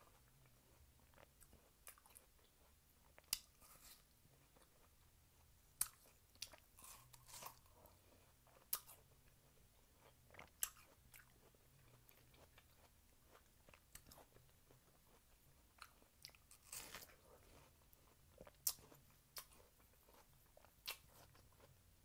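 Faint, close-up chewing of watermelon: scattered wet mouth clicks and smacks, one every second or two, with a few louder ones.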